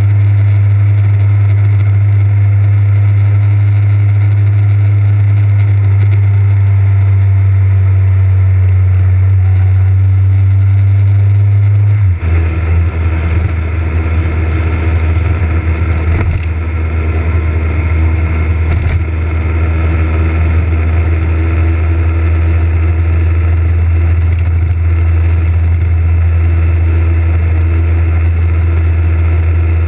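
Motorcycle engine running steadily while riding, recorded on a helmet-mounted action camera. About twelve seconds in the engine note drops abruptly, and more wind and road noise comes in from then on.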